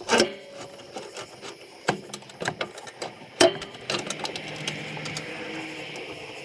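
Metal clicks and knocks of hands and tools working on mower parts during a control-cable replacement, with a sharp knock near the start and another about halfway through. A faint steady hiss comes in about two-thirds of the way in.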